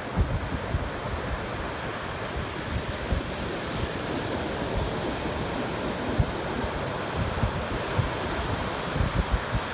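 Ocean surf breaking and washing up a beach, a steady rush, with wind buffeting the microphone in low irregular thumps, mostly near the start and toward the end.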